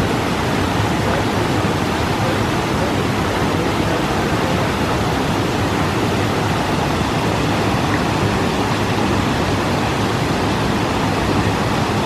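Small creek waterfall pouring over a rock ledge into a pool: a steady, even rush of falling water.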